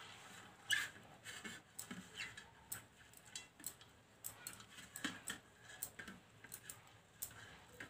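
Faint, irregular light clicks and scrapes of a metal spoon against a stainless steel plate as oil is spread across it.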